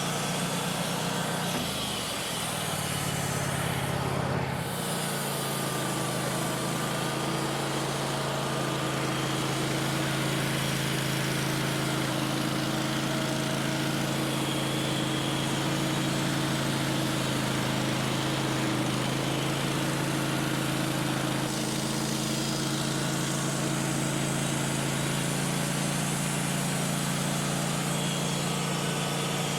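Band sawmill's engine running steadily. Its note shifts briefly a few seconds in, then holds even.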